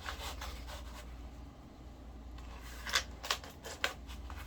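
Scissors snipping through packaging, with three short sharp snips about three seconds in, over a low steady hum.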